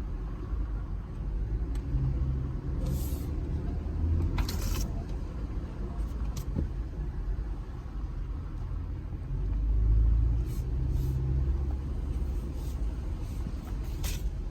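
A 2020 Jeep Gladiator Rubicon's 3.6 Pentastar V6 running at low speed on an off-road trail: a steady low rumble that swells twice, with a few brief knocks and rattles.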